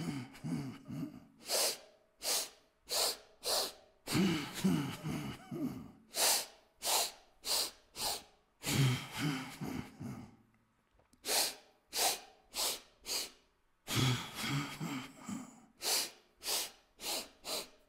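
A man doing yogic pushed breathing (Stoßatmung): groups of four short, forceful breaths in quick succession, filling upper belly, flanks, back and chest in turn, each group followed by a longer breath with a faint voiced sound.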